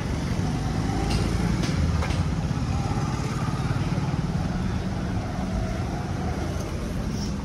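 Roadside traffic: motor vehicle engines running steadily, with a few sharp clicks between one and two seconds in.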